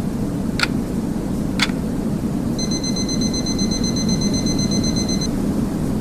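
A digital timer alarm beeps rapidly for almost three seconds, starting about two and a half seconds in. Before it, two clock-like ticks come about a second apart. Steady white noise runs underneath throughout.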